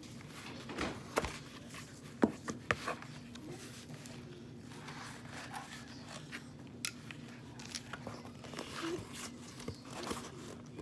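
Needle-nose pliers pressing into and bending a painted cardboard box: scattered scrapes, crunches and small clicks, the sharpest about two seconds in, over a steady low hum.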